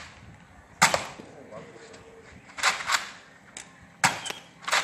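Nerf Mega Rotofury foam-dart blaster firing: a handful of sharp pops and clacks, one to two seconds apart.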